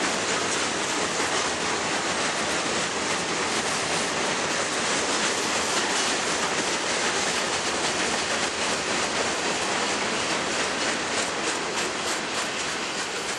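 Freight train of boxcars rolling steadily past, a loud even rumble of steel wheels on rail with a rhythmic clacking over the rail joints that stands out more near the end as the noise eases slightly.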